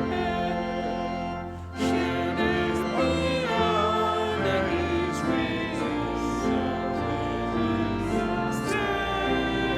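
A hymn sung by several voices with instrumental accompaniment, with a short break between phrases just before two seconds in.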